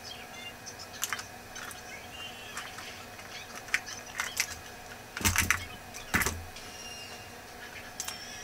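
Small clicks and taps from handling a makeup compact and an eyeliner pencil, with a few louder knocks and bumps about five and six seconds in.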